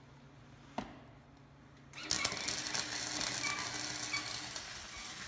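Electric arc welding: the arc strikes about two seconds in and crackles and sizzles steadily for about three seconds as a brace is welded onto the steel bumper mount and ATV frame, easing off near the end. A single sharp click comes just before, under a second in.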